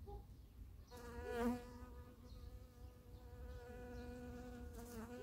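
Honeybee buzzing in flight close by: a steady hum that starts about a second in, swells loudest and wavers in pitch as it passes close about a second and a half in, then holds on.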